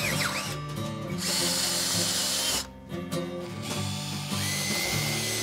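Cordless drill with a twist bit boring into a metal mounting plate, running in bursts with short pauses, over background music.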